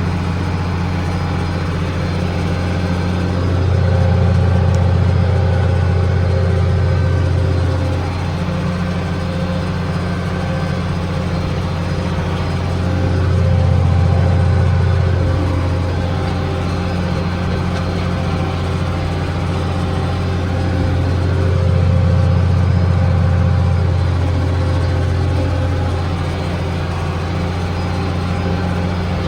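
Tractor engine running steadily under load while pulling a 15-foot batwing mower, swelling louder three times and then easing back.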